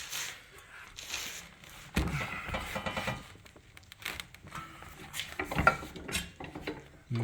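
Hammer blows on a sheet-steel patch panel being bent into a sharp corner: an irregular series of metallic knocks and clinks with brief ringing. The loudest blow comes about five and a half seconds in.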